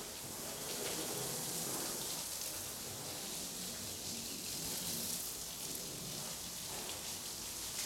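Water spraying over a car's roof and body as it is rinsed: a steady hiss without a break.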